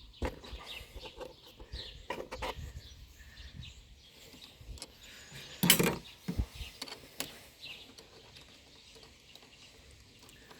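Scattered clicks and knocks of hand tools working at a car battery and its terminals, with one louder clunk a little past halfway. Birds chirp faintly in the background.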